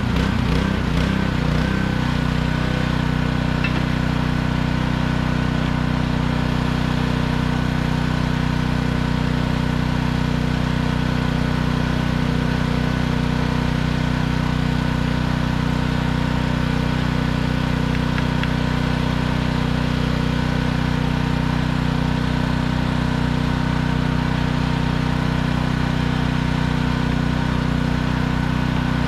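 Small gas engine of a pressure washer running steadily; its note wavers in the first two seconds, then holds even.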